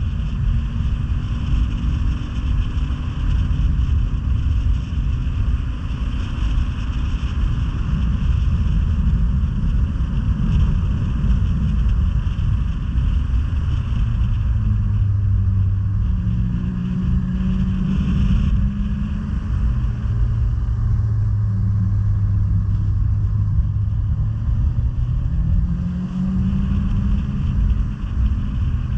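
Snowmobile engine running while riding along a trail. Its pitch rises and falls with the throttle in the second half, over a constant low rush of wind and track noise.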